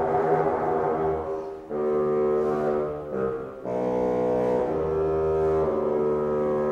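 Solo bassoon playing slow, held notes of an unaccompanied melancholy melody. The first note sounds rough and wavering, then clearer sustained notes follow, with a brief break about three seconds in.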